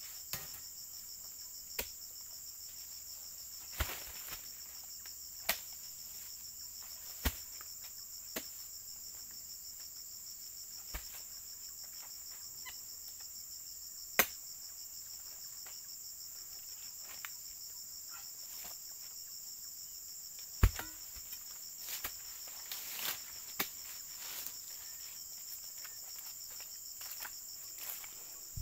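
Steady high-pitched insect drone, with scattered sharp knocks and cracks from a long-poled oil palm harvesting sickle being worked against the palm's fronds and fruit bunch. The loudest, deepest knock comes about two-thirds of the way through.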